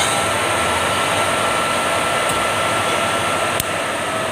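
Three-phase electric compressor motor running steadily just after switch-on, with a steady whine over its noise. It has no belt fitted, so it spins unloaded, and it runs, which shows the wiring and motor are good. A short click sounds about three and a half seconds in.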